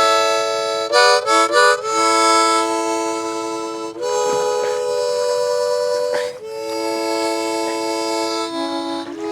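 Background music: slow held chords on a reedy instrument, with a quick run of short chords about a second in.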